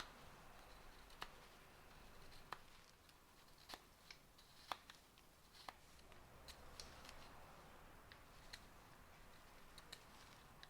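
Knife whittling ginkgo wood: faint scraping cuts broken by sharp little clicks, about one a second at an irregular pace, as the blade shaves and snaps off chips.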